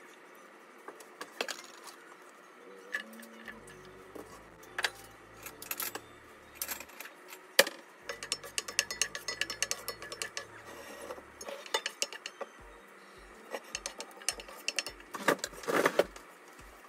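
Kitchen clatter: a wooden spoon knocking and scraping in a cast-iron skillet as diced onion is stirred in oil. Scattered sharp knocks throughout, the loudest about seven and a half seconds in and a quick run of them near the end.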